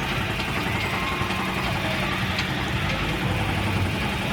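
A steady engine-like hum with a noisy wash over it and a few faint clicks.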